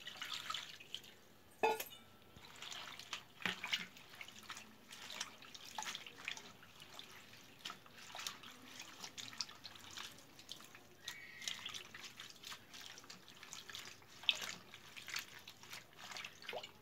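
A hand swishing and rubbing spinach leaves in a bowl of water, with faint, irregular small splashes and drips. The leaves are being washed in water with turmeric and salt to loosen dirt.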